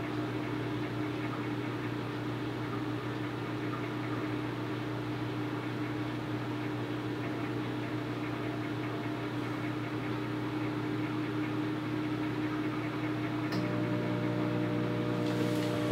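Microwave oven running with a bowl of oats and water inside: a steady hum with fan noise. Near the end, a second hum with a few more tones joins in.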